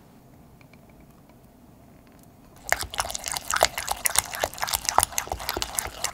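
Softened cream cheese and plain yogurt being stirred together in a bowl. There is little sound at first, then from about two and a half seconds in comes a quick, continuous run of wet squelches and clicks as the utensil works through the mixture.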